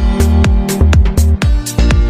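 Electronic dance music with a heavy kick drum on every beat, about two beats a second, under sustained synth tones.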